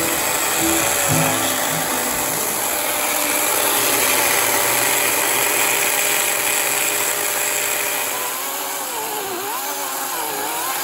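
A power tool working wood, running as a steady, loud whirring noise; in the last few seconds a wavering tone rises and falls over it.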